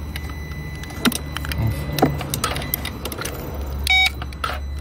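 A steady low hum with a few sharp clicks, the strongest about one and two seconds in, and a short electronic beep about four seconds in.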